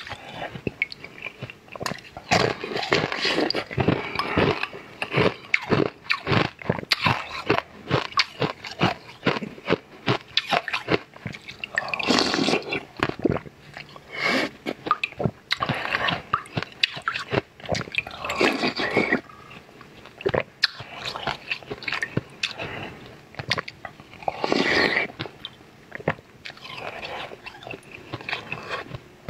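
Close-up biting and chewing of a thin sheet of sweet ice, with many sharp crunches and crackles. A few longer noisy sounds of about a second each come in between, several seconds apart.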